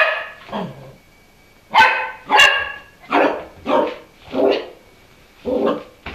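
Kelpie puppy barking in play at its own reflection in a glass shower wall: about eight short barks, mostly in pairs, some dropping in pitch, with pauses between them.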